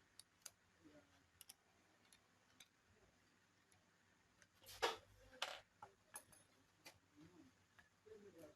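Small clicks and taps of laptop parts being handled during reassembly, with two sharper knocks about five seconds in.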